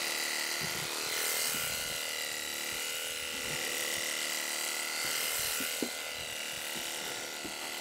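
Electric sheep-shearing handpiece running steadily with a high whine, its cutter working through the fleece in long blows along a ram's back.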